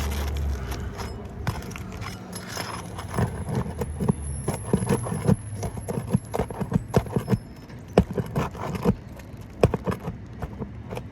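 A metal hand tool tapping, clicking and scraping against a roofing nail and asphalt shingles as the nail is worked loose, in an uneven run of sharp taps with two louder knocks near the end. A low steady hum runs under the first few seconds.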